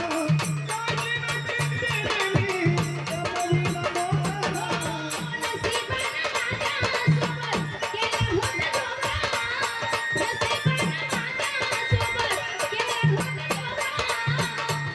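Indian folk devotional music: fast, steady rattling percussion under a wavering melody line, with a repeating low beat pattern.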